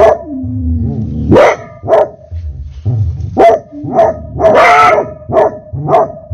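Hunting hound barking over and over, about one bark every half second with one longer, drawn-out bay about two-thirds of the way in, each call ringing on inside a corrugated metal culvert pipe.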